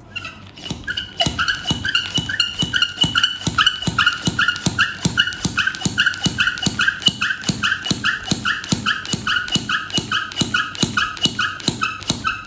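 Manual hand pump pumped rapidly to draw the remaining air out of a vacuum compression storage bag, at about three strokes a second, each stroke giving a squeaky chirp. The pumping is rather noisy and stops abruptly near the end.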